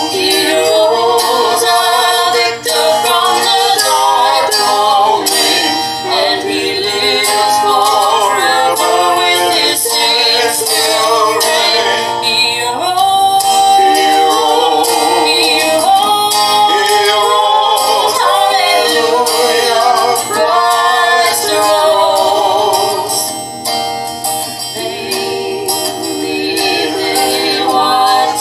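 A song playing: a singing voice carrying a melody over instrumental accompaniment.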